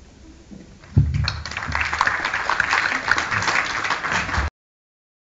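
A single thump about a second in, then an audience applauding, a dense patter of many hands clapping that cuts off suddenly near the end.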